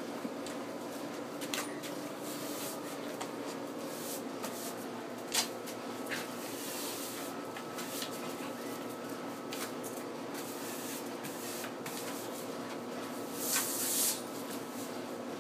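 Scattered knocks and scrapes from a push broom on concrete as two springer spaniel puppies bite and tug at it, with one sharp knock about five seconds in and a brief brushing swish near the end, over a steady low hum.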